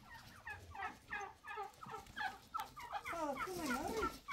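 Domestic turkeys gobbling: a quick run of short calls, about three or four a second.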